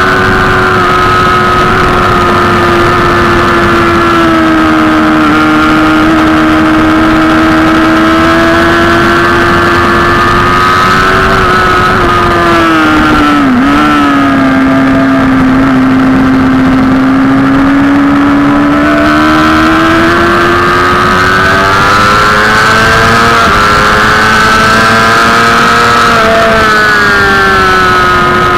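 Sport motorcycle engine running at high revs at track speed, heard from the rider's seat with wind noise. About halfway through, the engine note drops with a brief dip as the bike slows for a corner. It stays lower for a few seconds, then climbs again as it accelerates out, with one gear change near the end.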